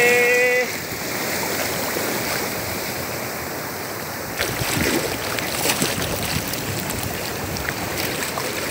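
Sea surf churning and washing around close to the microphone: a steady rush of foamy water, with scattered small splashes and drips from about halfway on. A short held call cuts off within the first second.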